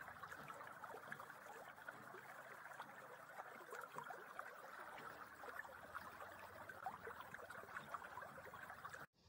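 Shallow stream burbling and trickling over rocks, faint and steady, cutting off abruptly near the end.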